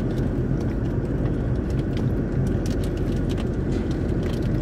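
Steady low road and engine rumble inside the cabin of a moving car, with a few faint light clicks over it.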